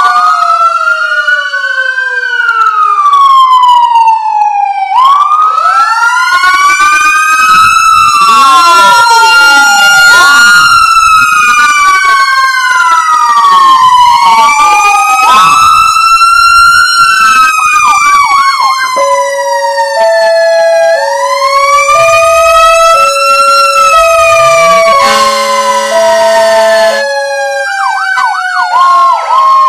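Layered emergency-vehicle sirens: several wails gliding slowly up and down over one another, then a two-tone hi-lo alternating about once a second. A short steady horn blast sounds near the end, and a fast yelp warble closes it.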